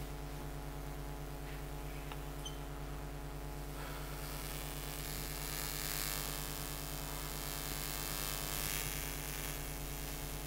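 Steady electrical mains hum, with a soft scratchy hiss of a marker writing on a whiteboard from about four seconds in, swelling twice.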